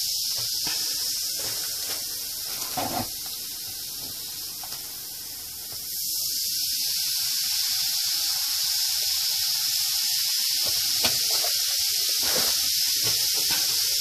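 Baking soda and vinegar fizzing inside a clay model volcano, a steady hiss that grows louder about six seconds in as more vinegar is poured from a plastic jug. A single soft knock about three seconds in.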